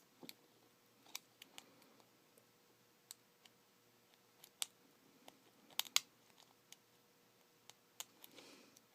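Small padlock being picked with a pick and tension wrench: faint, irregular clicks and ticks of the tools working the pins in the keyway, a few sharper ones near the middle.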